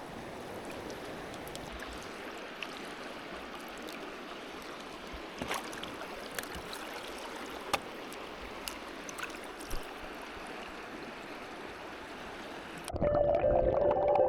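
Mountain river flowing, a steady rush of water with a few faint clicks. Music comes in abruptly near the end.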